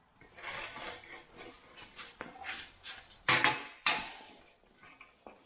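Clunks, knocks and scraping as freshly plug-welded dolly wheels are set down and handled for a test, with two louder knocks a little past the middle.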